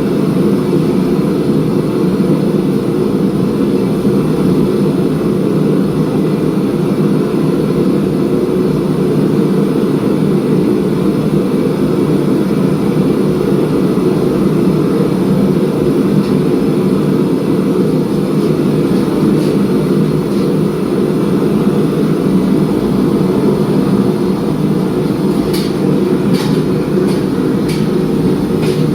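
Steady, loud roar of a forge running while a steel billet heats. Near the end come a few sharp clicks.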